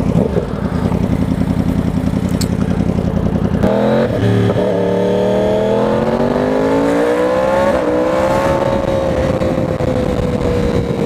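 2020 Yamaha R1's crossplane inline-four running at low revs, then rising in pitch as the throttle is rolled on about four seconds in. A brief break near eight seconds, then the note levels off and eases slowly down.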